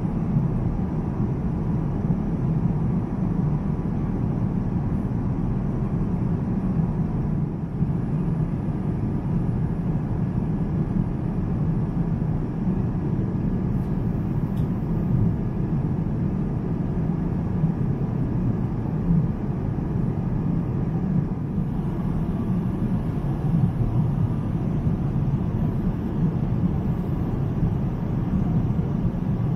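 Steady low rumble of a Boeing 787-9's cabin in cruise flight: engine and airflow noise, even and unchanging, with most of its weight low down.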